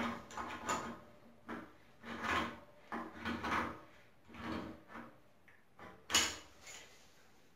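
Tongue-and-groove pliers working the metal union nut of a radiator valve tight: a series of short scraping, grating strokes as the jaws grip, turn and are repositioned, with a sharper, louder one about six seconds in.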